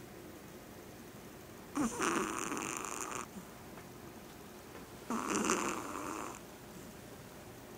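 Teacup Yorkshire terrier snoring in her sleep: two loud snores about three seconds apart, each lasting over a second, with quiet breathing-level background between them.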